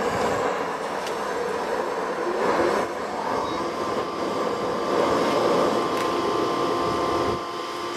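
Handheld propane torch lit with a click and blowing a steady hissing flame into a pile of coke and cardboard, lighting a coal forge fire. A steady hum joins about three seconds in.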